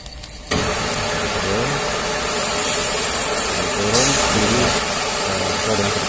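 Konecranes electric wire rope hoist starting up about half a second in and running steadily as it lowers the hook block. A thin high whine joins from about two seconds in.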